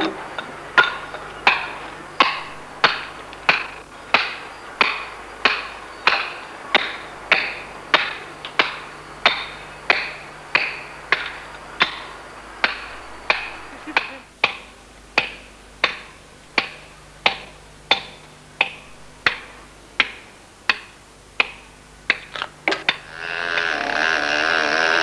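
Hand hammer striking a steel chisel on granite at a steady pace, about three blows every two seconds, each blow ringing briefly. Near the end the hammering stops and a steady machine drone starts.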